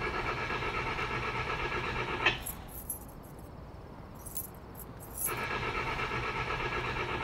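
Steady electronic buzz from a phone's speaker as a voicemail's voice breaks off. It runs for about two seconds, drops away for about three seconds, then returns near the end.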